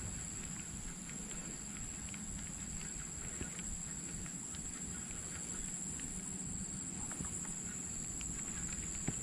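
Outdoor ambience: a steady high-pitched insect drone over a low wind rumble, with a few faint scattered clicks.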